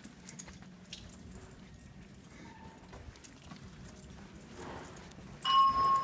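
Faint footsteps walking, then about five and a half seconds in a fire alarm voice-system speaker suddenly comes on with a loud steady tone that keeps sounding. This is a speaker test of a Simplex 4100U voice evacuation system, with the microphone keyed at the panel.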